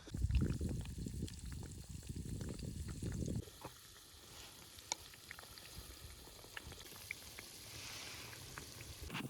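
Battered cauliflower deep-frying in plenty of oil: a steady sizzle with scattered crackling pops. A low rumble covers the first few seconds, then stops.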